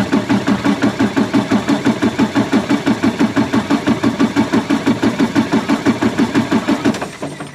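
Freightliner Cascadia diesel engine cranking over on its starter, which is energized directly through the starter signal wire. The compression pulses come in an even rhythm of about six and a half a second, then stop abruptly near the end without the engine firing.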